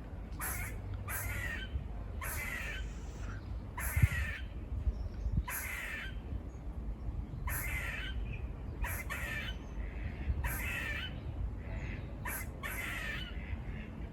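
A squirrel giving repeated raspy barking alarm calls, about one short call a second, over a low rumble. A brief thump about four seconds in.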